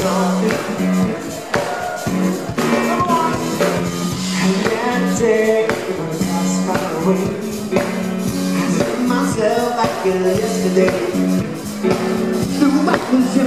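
Live funk band playing a steady groove, with drum hits, a repeating bass line and keyboards, and a male voice singing over it.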